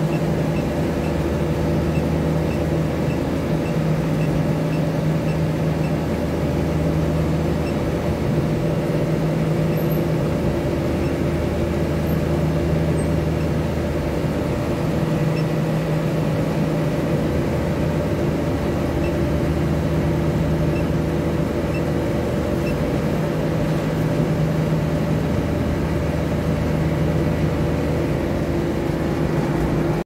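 TICA TCA301 modular air-cooled chiller running: a steady hum of compressor and condenser fans with a low tone that swells and fades every few seconds. A faint high ticking repeats about twice a second in the first several seconds.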